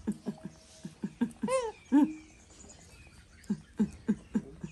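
Young macaque giving soft, squeaky calls as it grooms: a string of brief low chirps, two longer calls that rise and fall in pitch about one and a half to two seconds in, then more brief chirps near the end.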